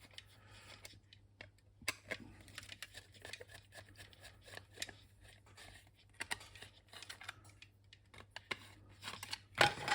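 Faint scattered clicks and scrapes of a screwdriver working a small screw and a small plastic case being handled, over a steady low hum. A louder clatter comes near the end.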